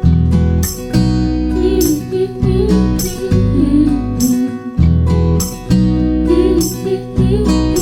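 Background music: a pop song with acoustic guitar, bass and a steady beat, in a stretch without sung words.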